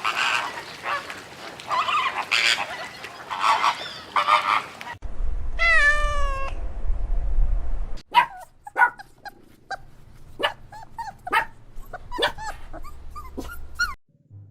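Recorded domestic animal calls played as three short clips: a dense jumble of noisy calls, then one long falling call, then a string of short, sharp yelps.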